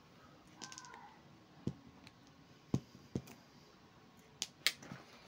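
Steel long-nose pliers clicking and tapping against a hard tabletop while picking up small pieces of wire insulation: half a dozen separate sharp clicks, the loudest two close together about four and a half seconds in.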